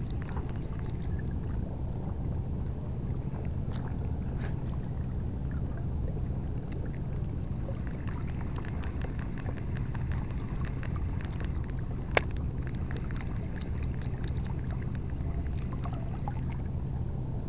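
Small 1000-size spinning reel being cranked steadily on a lure retrieve, giving faint, fast ticking, with one sharp click about twelve seconds in. A steady low rumble with a hum runs underneath.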